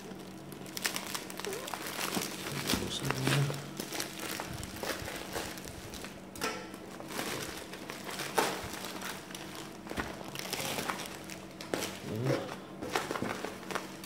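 Plastic bubble wrap being handled and pulled apart by hand, with irregular crinkling and crackling. A faint steady low hum sits underneath.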